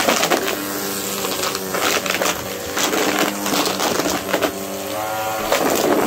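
Upright vacuum cleaner running over carpet, its motor hum shifting in pitch a few times, with repeated clattering and crunching as loose debris is sucked up.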